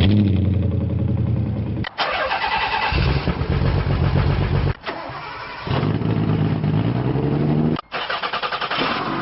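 An engine starting and running in several short spliced clips, each cut off abruptly.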